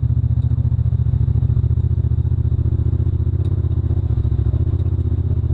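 2016 Honda Pioneer 1000 side-by-side's parallel-twin engine running steadily through a GSE Performance aftermarket exhaust, a deep, rapid pulsing held at an even speed.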